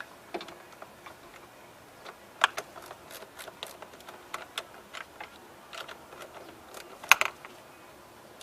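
Irregular light clicks and knocks of a battery cable and terminal being fitted and pushed down by hand on a car battery, with a sharper knock about two and a half seconds in and another about seven seconds in.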